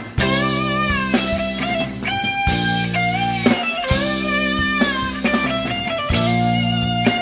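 Live rock band playing: an electric guitar holds long lead notes that bend in pitch, over sustained bass and drums with cymbal strikes about once a second.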